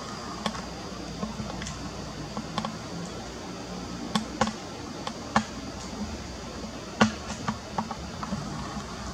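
Sharp, irregular clicks and taps, about a dozen of them and the loudest about seven seconds in, over a steady background noise.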